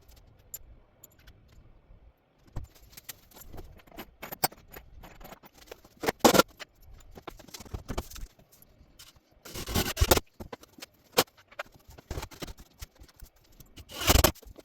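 Hard objects being handled and moved about: a string of small clinks, rattles and scrapes, with louder clatters about six, ten and fourteen seconds in.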